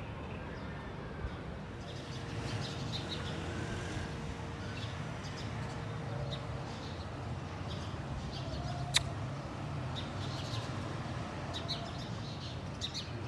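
Small birds chirping in short, high notes scattered throughout, over a steady low rumble of distant traffic. A single sharp click comes about nine seconds in.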